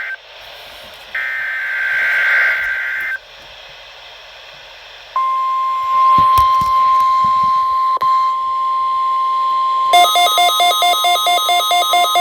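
NOAA Weather Radio Required Weekly Test: the end of one SAME header data burst and then a second buzzing two-tone burst of about two seconds, and after a short gap the steady 1050 Hz weather alert tone. About ten seconds in, a rapid alarm beeping, about five or six beeps a second, starts over the tone, typical of a weather radio receiver set off by the alert tone.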